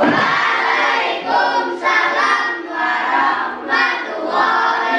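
A class of children's voices singing together in unison, in short phrases.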